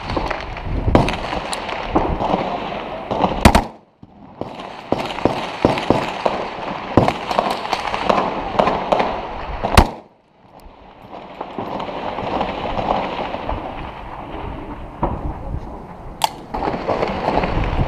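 Gunfire in an urban firefight: a dense run of rifle shots, near and far, with two very loud shots about three and a half and ten seconds in, each followed by a brief sudden drop in sound.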